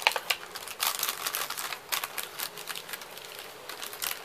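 Plastic wrapper of a roasted-seaweed snack pack crinkling and crackling as it is handled and opened, in irregular bunches of rustles and clicks.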